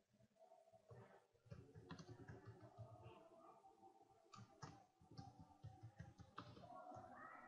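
Faint computer keyboard typing: irregular, quick key clicks with short pauses between them.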